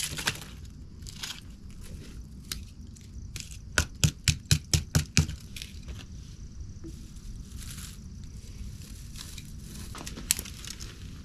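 Camping gear and packaging being handled, with rustling and crinkling. About four seconds in there is a quick run of about eight sharp clicks, and a single click comes near the end.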